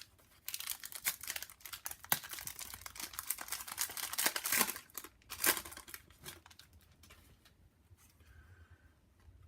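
Foil wrapper of a sports-card pack being torn open and crinkled by hand, a dense crackling rustle that dies down after about six seconds.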